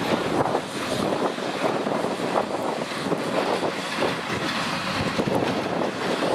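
Freight train of open wagons moving slowly past behind a diesel locomotive: a steady rolling noise with irregular clanks and knocks from the wheels and wagons, and the diesel engine running.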